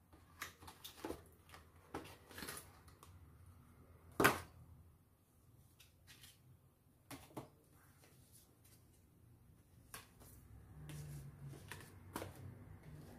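Paper and plastic packaging from a phone box being handled: a white card envelope and a clear plastic sleeve rustling, with scattered small clicks and one sharper tap about four seconds in.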